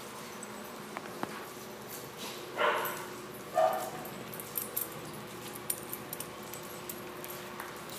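A dog barks twice, about a second apart, a little under three seconds in.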